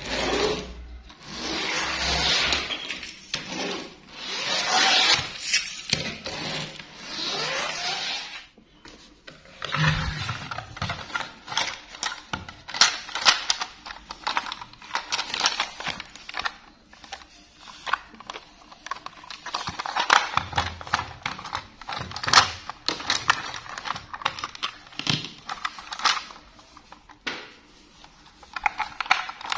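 Plastic toy trains rolled and scraped along a tabletop, then many sharp clicks and knocks as a plastic toy train is handled and turned over.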